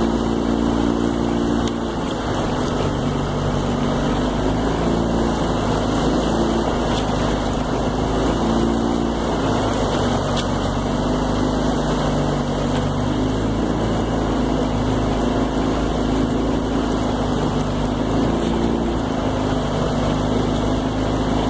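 Small outboard motor running steadily at low speed, its pitch wavering slightly up and down.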